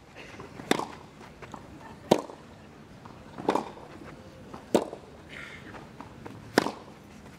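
Tennis rally: a ball struck back and forth with rackets, five sharp strikes about one and a half seconds apart.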